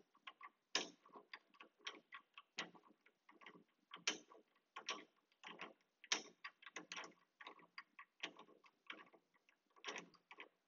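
Drill press chuck being turned and tightened by hand: a faint, irregular run of metal clicks and ticks, a few a second, some sharper than others.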